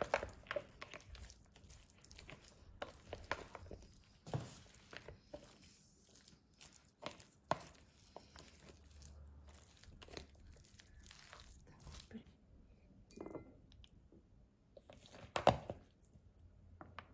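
A fork stirring a chopped Napa cabbage and cucumber salad dressed with mayonnaise in a plastic bowl: irregular crunching of the cabbage and light clicks of the fork against the bowl. There is one louder knock near the end.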